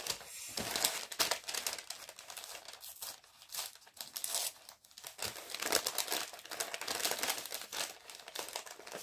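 A well-taped envelope being opened by hand: the packaging crinkles and crackles irregularly, with some tearing as the tape gives.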